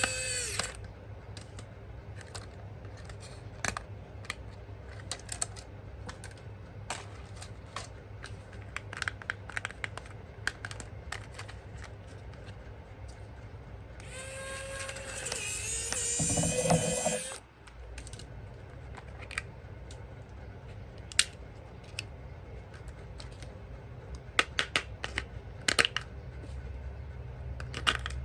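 Scattered light clicks and knocks of small parts being handled, with a small electric motor whining for about three seconds midway, its pitch dipping and rising before it cuts off.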